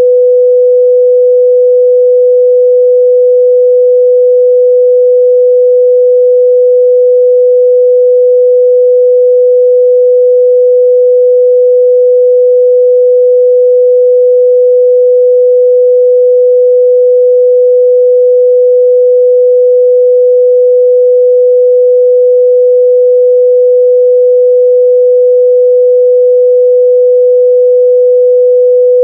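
A continuous pure sine-wave test tone at 497 Hz, held steady and loud at one unchanging pitch.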